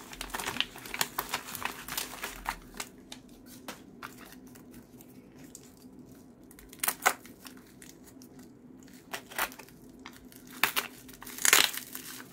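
Plastic wrapping being crinkled and pulled open by hand. Dense crinkling for the first few seconds, then scattered sharp crackles, the loudest near the end.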